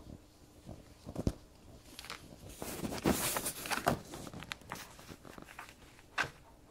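Two kittens play-fighting on a hardwood floor: paws scrabbling and patting on the wood, with scattered sharp knocks, busiest around three to four seconds in.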